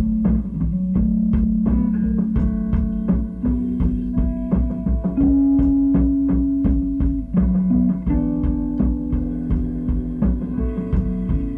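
Improvised instrumental music played live by a small group: long held melodic notes that move to a new pitch every second or two, over a steady percussive beat and a heavy low bass.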